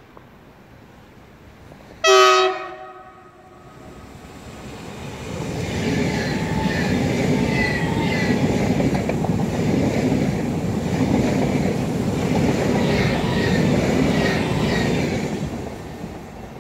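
PKP Intercity ED250 Pendolino electric train giving one horn blast, the Rp1 'attention' signal, about two seconds in as it approaches. It then passes through the station at speed, its wheels clicking over the rail joints, and the noise fades near the end.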